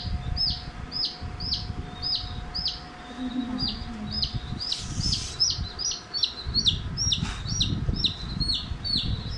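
Young chicks peeping: a steady run of short, high, falling chirps, about two a second at first and coming faster in the second half, over a low rumble.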